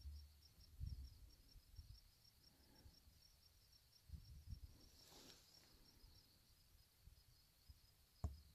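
Faint insect chirping, a steady rapid pulse of about four or five chirps a second, with a few low dull thumps on the microphone.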